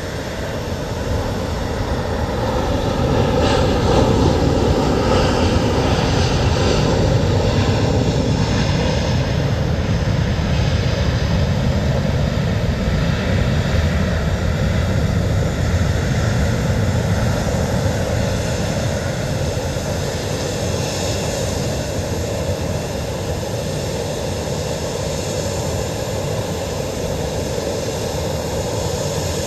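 Aircraft engines running: a steady engine noise with a faint whine that builds over the first few seconds and then holds.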